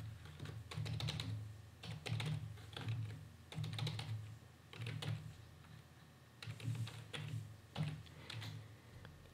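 Computer keyboard typing in short runs of key clicks, with brief pauses between the runs.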